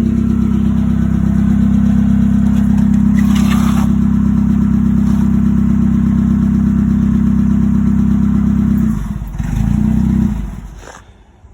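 An engine running steadily at a constant speed, then dropping away about nine seconds in, with a brief swell before it dies down.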